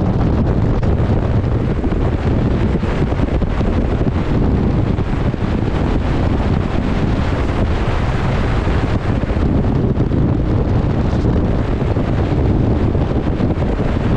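Steady wind noise buffeting the microphone over the rush of waves on the open sea, a dense, even roar heaviest in the low end.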